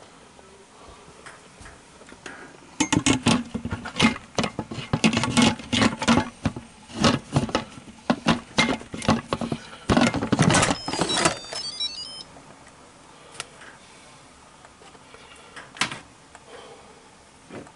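Instant Pot electric pressure cooker and its contents being handled: a dense string of clattering knocks and clicks for about eight seconds, ending in a short falling run of electronic beeps, then a couple of single clicks.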